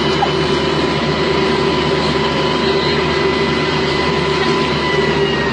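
Bulldozer's diesel engine running steadily, with a fixed high whine over the low rumble.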